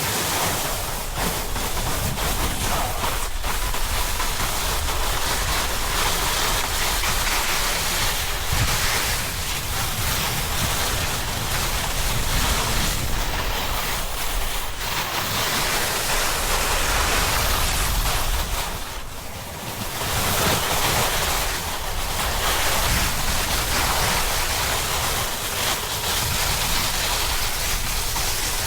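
Steady rushing noise of a snowboard run: wind buffeting the camera's microphone while the board slides and scrapes over the snow. It dips briefly a little before the 20-second mark, then picks up again.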